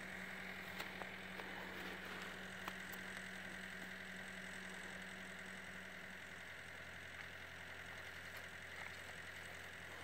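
Faint, steady low hum of an idling engine, with a few soft clicks.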